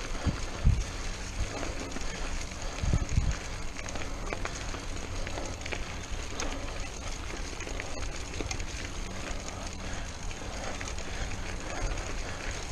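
Mountain bike rolling over a dirt and leaf-strewn trail, heard from a chest-mounted camera: steady tyre and bike noise with a few low thuds from bumps, about half a second in and again around three seconds in.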